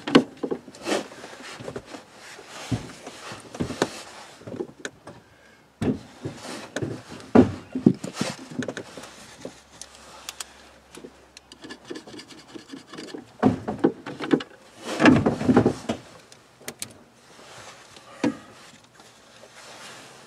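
Hands handling and fitting a white PVC drain tailpiece against a shower drain fitting: irregular rubbing, scraping and light knocks, busiest and loudest about two-thirds of the way through.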